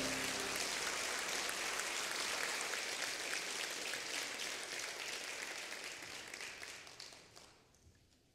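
A congregation clapping, a dense patter of many hands that dies away about seven seconds in.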